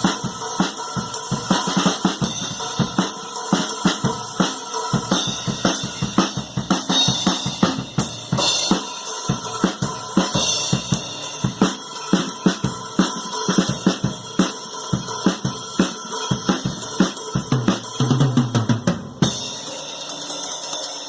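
Drum kit played freestyle: fast, dense beats on bass drum, snare, hi-hat and cymbals. Near the end comes a run of lower-pitched drum hits, then the playing stops abruptly.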